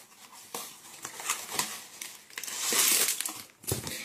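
Cookie packaging being opened by hand: scattered crinkles and rustles, with a longer, louder crinkling about three seconds in.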